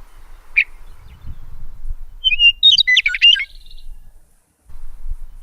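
A songbird singing: one sharp chirp, then about two seconds in a quick phrase of varied, rapidly changing chirping notes lasting about a second. A faint low rumble runs underneath.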